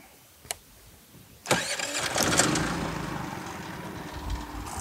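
Generac iQ3500 inverter generator starting up: a small click, then about a second and a half in the engine catches and runs, settling a little after its first surge.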